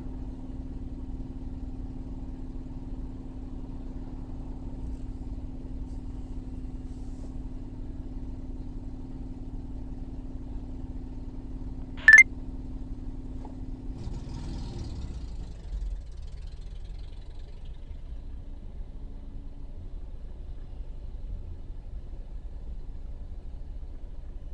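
Car engine idling, heard from inside the cabin: a steady low hum. About halfway through there is a single short, sharp click, and a couple of seconds later the hum's steady tone drops away.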